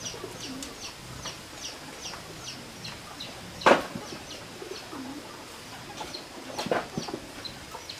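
Chicks peeping steadily, a short falling chirp two or three times a second, with a sharp knock about three and a half seconds in and a few more knocks near the end.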